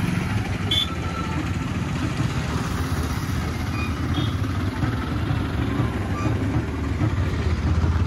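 Vehicle engine running steadily, a low drone that is the loudest sound throughout.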